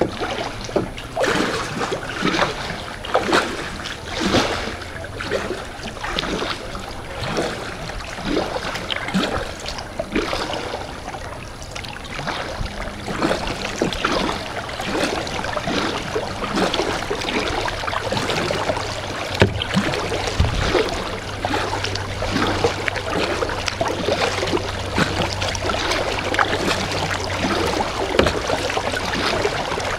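Kayak paddle strokes in calm water, about one stroke a second, with splashing and water trickling off the blades. A low steady hum runs underneath.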